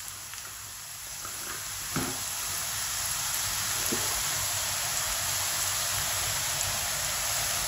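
Masala-coated okra deep-frying in hot oil in a wok: a steady sizzle that swells louder over the first few seconds as handfuls of okra are dropped in, then holds.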